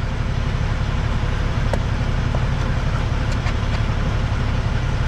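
Semi truck's diesel engine idling, heard from inside the cab as a steady low rumble. A couple of faint ticks come about two seconds in.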